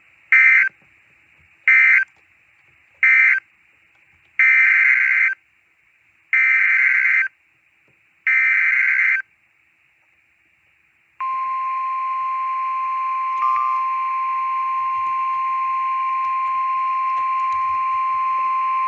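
Emergency Alert System SAME data bursts from NOAA Weather Radio: three short screeching bursts that end the severe thunderstorm warning, then three longer bursts that are the header of the next alert, a special marine warning. After a pause of about two seconds, the steady 1050 Hz weather radio alert tone starts and holds.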